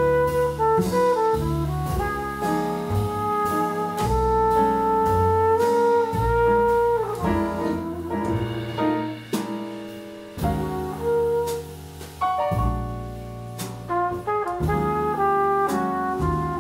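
Live small-group jazz: a flugelhorn carries the melody, holding one long note in the middle, over piano, double bass and drums with frequent cymbal strokes.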